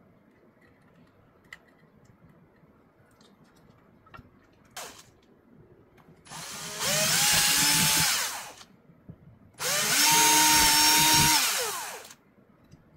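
Cordless drill run in two bursts of about two seconds each, drilling into a plastic speaker adapter ring. Each burst spins up in pitch and then holds a steady whine.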